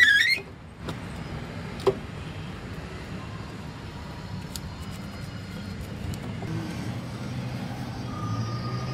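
Steady low traffic rumble of a street-side stall. Right at the start a round metal waffle iron is flipped open with a brief high squeak and clatter, the loudest sound here. A single sharp click follows about two seconds in.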